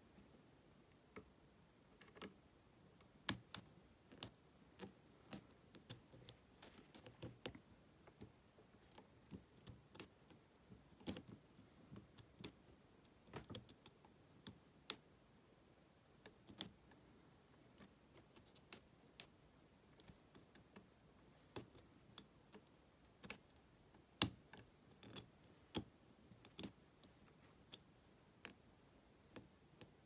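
Steel lock pick and tension wrench working the pins in the keyway of a brass Lockwood 120N padlock: small, irregular metallic clicks and ticks, a few sharper than the rest.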